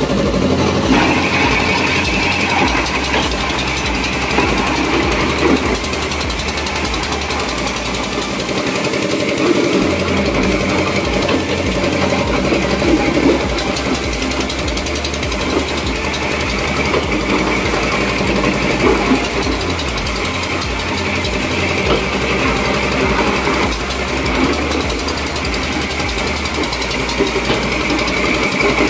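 Ice-crushing machine running steadily, a continuous mechanical clatter with no pause.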